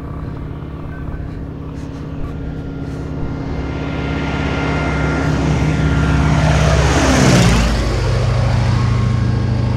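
Propeller aircraft flying over. Its engine drone grows steadily louder, peaks about seven seconds in, then drops in pitch as it passes overhead.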